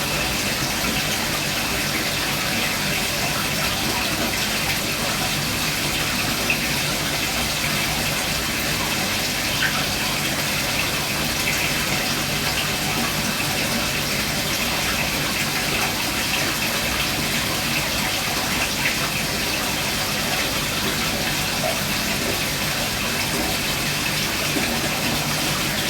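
Steady rush and splash of circulating aquarium water in a fish tank, with a faint low hum underneath.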